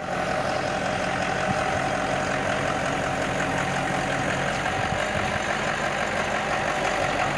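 Truck-mounted mobile crane's engine running steadily, a constant low hum.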